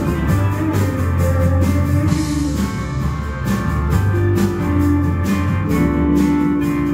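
Live blues band playing: guitar, bass guitar and drum kit, with a steady beat.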